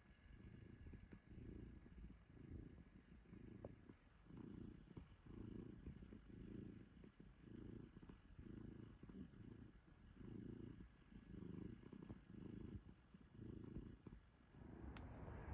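Faint, even purring of a domestic cat, rising and falling about twice a second.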